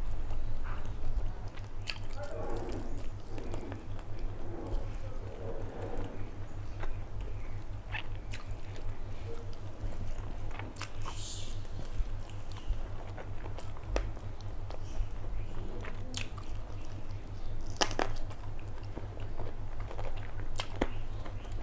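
Close-miked chewing of chicken curry and rice, with wet mouth sounds and scattered sharp clicks, and fingers squishing the rice and curry on the plate.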